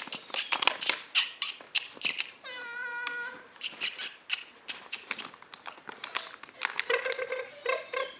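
Repeated high squeaks, all at the same pitch: one held for about a second, two and a half seconds in, then several short ones near the end. Under them runs a rapid string of sharp clicks and taps through the first six seconds.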